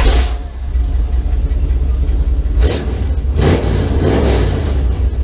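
Car engine rumbling with a couple of revs about two and a half and three and a half seconds in.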